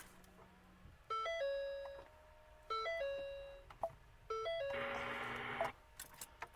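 A Ford Taurus's electronic warning chime sounding three times, about a second and a half apart, each a quick stepped ding that rings on and fades, showing the car's electrics are powered again after the battery was reconnected. About a second of rushing noise follows near the end.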